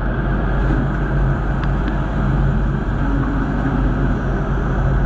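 CNC lathe turning a metal part under flood coolant: a steady, dense machine noise with a low hum from the running spindle, mixed with coolant spray.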